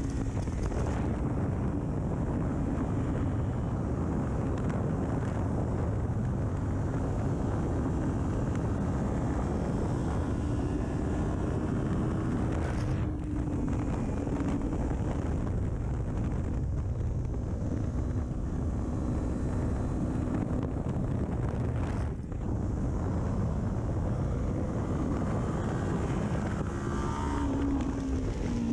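2019 Kawasaki Ninja 400's parallel-twin engine, with an aftermarket full exhaust, running hard at track speed, its pitch rising and falling with the throttle and gears, under heavy wind rush on the microphone. The sound dips briefly twice partway through.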